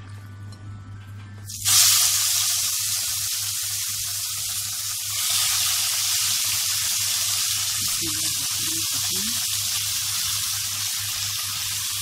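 Wet marinated seafood (shrimp, crab and squid) dropped into hot butter and coriander seeds in a frying pan, setting off a sudden loud sizzle about two seconds in that surges again around five seconds and then fries on steadily. A steady low hum lies underneath.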